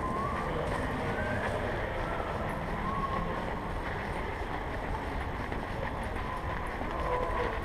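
Steady rumbling movement noise from an action camera worn on a walking dog: the harness and body rub against the microphone with each step.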